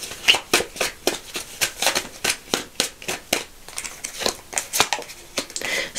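A deck of tarot cards being shuffled by hand: a steady run of crisp card slaps, about four a second.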